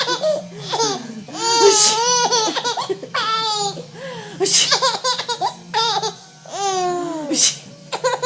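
A baby girl laughing in several high-pitched bouts with short pauses between them, set off by her mother's sneezes.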